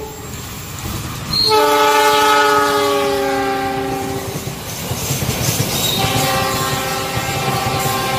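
CC206 diesel locomotive horn: a brief note right at the start, then a long loud blast from about a second and a half in that sags slightly in pitch, and a second, softer blast from about six seconds in. Underneath, the steady rumble and clatter of the passenger train's wheels on the rails as it passes.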